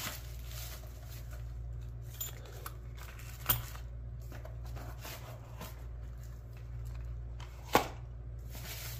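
Quiet rustling and handling of the contents of an opened mail package, paper and plastic packaging moved about, with two sharp clacks, about three and a half seconds in and near the end.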